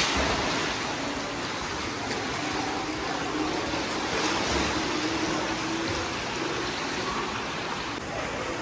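Water running and splashing in a steady rush, with faint distant voices under it.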